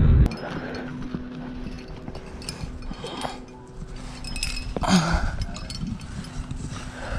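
Climbing gear clinking and scraping in small scattered clicks as a climber moves on a granite rock face, with one short voice-like sound about five seconds in. Car road noise cuts off right at the start.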